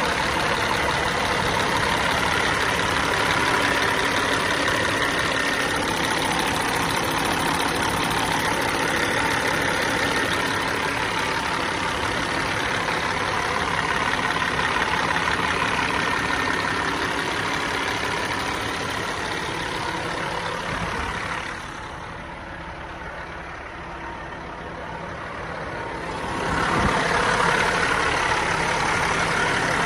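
Caterpillar diesel engine of a 2007 Peterbilt 357 truck idling steadily, heard up close at the open engine bay. About two-thirds of the way through it turns quieter and muffled for about five seconds, then returns.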